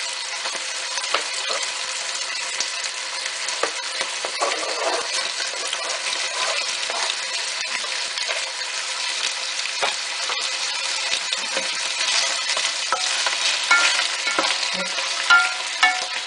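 Beef chunks frying in hot oil: a steady sizzle with scattered crackles and pops. A wooden spoon stirs the meat near the end.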